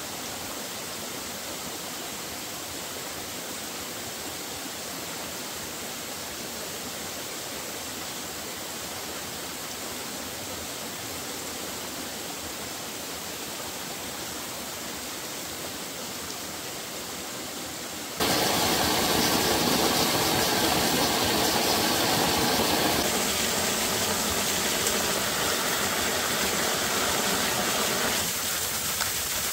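Steady rush of flowing water. About 18 seconds in it jumps abruptly much louder and brighter, with a faint steady hum in the louder part.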